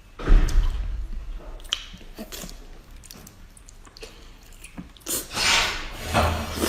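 Close-miked eating sounds: biting and chewing, with small clicks in the middle and a louder, noisy stretch of eating sound near the end.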